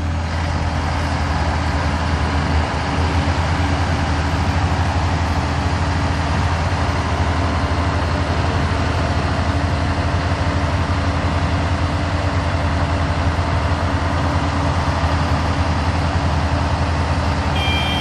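Heavy machinery diesel engines running steadily, a deep, even drone that holds one speed.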